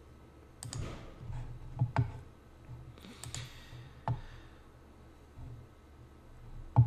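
A few sharp computer mouse clicks spread out in time, including a quick double-click about two seconds in, with a faint rustle between them.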